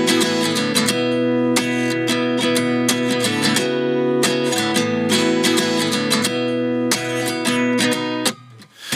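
Background music: acoustic guitar strumming chords in a steady rhythm, the instrumental opening of a pop song. It drops out for about half a second near the end, then comes back.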